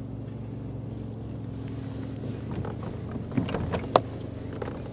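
Steady low hum of a motor under a kayak angler fighting a fish. About three and a half seconds in comes a short cluster of clicks and rattles from rod and reel handling, ending in one sharp click.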